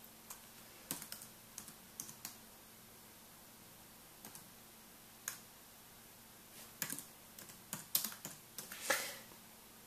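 Light, irregular clicks and taps on a MacBook's keyboard and trackpad, a few scattered at first and a quicker cluster near the end, over a faint steady hum.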